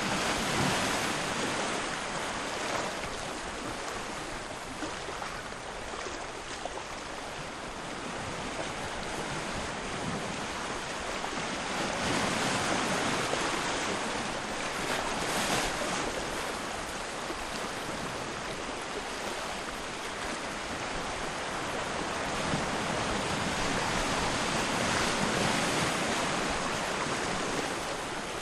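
Sea surf at low tide: a steady rush of waves washing in, swelling and easing every several seconds.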